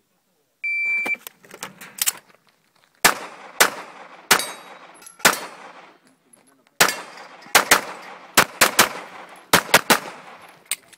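Electronic shot-timer start beep about half a second in, then a string of handgun shots. The shots come mostly in quick pairs with short pauses between as the shooter engages target after target.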